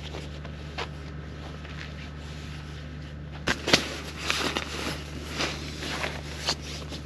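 Sleeping bag and inflatable sleeping pad rustling as they are arranged inside a tent, with irregular crinkly strokes from about halfway in. Underneath is a steady low hum from a generator.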